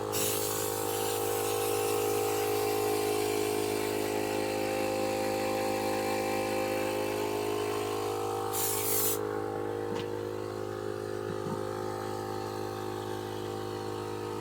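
A compressor running with a steady hum. For the first nine seconds or so an air-spray hiss sounds over it, ending in a short louder burst before it stops.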